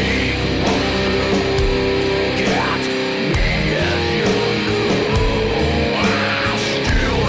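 Rock song with electric guitar and drums, a cymbal struck about three times a second over held guitar notes.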